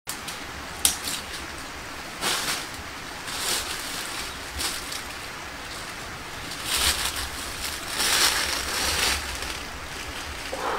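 Dry leaf litter rustling and crunching underfoot in irregular bursts, with a sharp crack about a second in.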